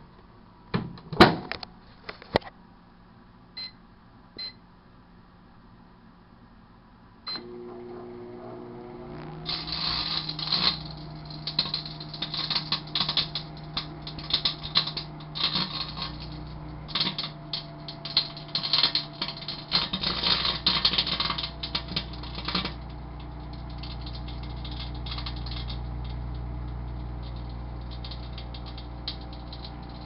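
A sharp knock about a second in, a few short beeps, then a microwave oven starts running with a steady hum. About two seconds after it starts, a compact disc inside begins arcing, a dense crackling of sparks from its metal layer that goes on for about thirteen seconds and then stops, leaving only the oven's hum.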